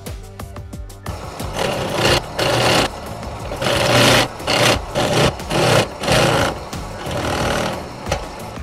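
Drill press running with a twist bit boring into a small wooden block, starting about a second in. The cut surges and eases in a series of short bursts, each lasting around half a second, as the bit is fed into the wood.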